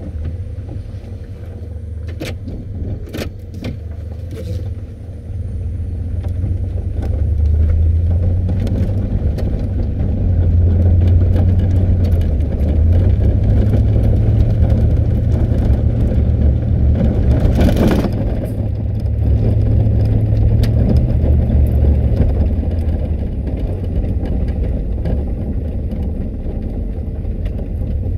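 Engine and road noise inside the cab of a 1996 Chevy under way: a deep rumble that builds up from about six seconds in as it gathers speed, then runs steadily. There is a short rush of noise about eighteen seconds in.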